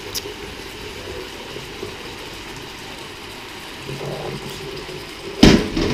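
Soaking water draining from a plate-covered bowl of noodles into a stainless steel sink, with a loud clatter of crockery about five and a half seconds in.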